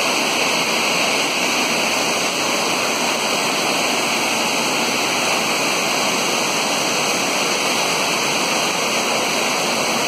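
Misol-Ha waterfall pouring, heard from inside the grotto at the falls: a constant, dense rush of falling water.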